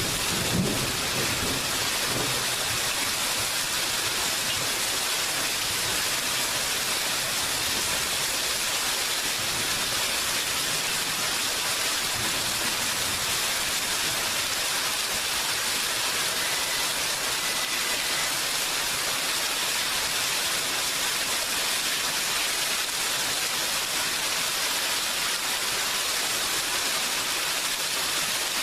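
Steady heavy rain falling, an even hiss with no breaks. A low thunder rumble dies away in the first couple of seconds.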